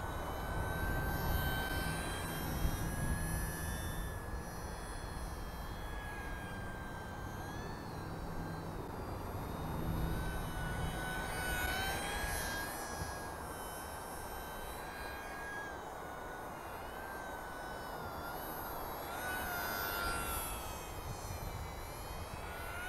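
Electric motor and propeller of a small OMP S720 RC sport plane whining in flight, the pitch wavering and shifting with throttle and as the plane passes, over a low rumble of wind on the microphone.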